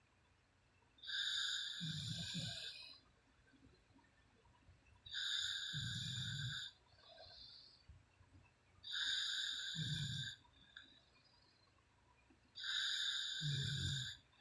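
A woman snoring in her sleep, four snores about four seconds apart. Each snore is one to two seconds long, with a low rattle and a high whistle.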